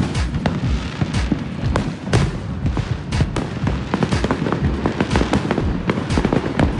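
Aerial fireworks going off overhead: a rapid, unbroken run of bangs and crackles, with deep booms underneath.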